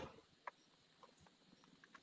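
Near silence, with a few faint short clicks.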